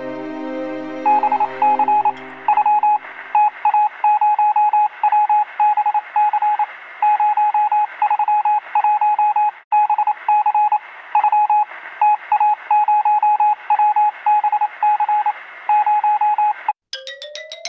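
Morse code beeping: one steady mid-pitched tone keyed on and off in short and long pulses over a faint hiss, as if heard over a radio. Music fades out in the first second, and near the end the beeping cuts off into a rising whine with rapid clicks.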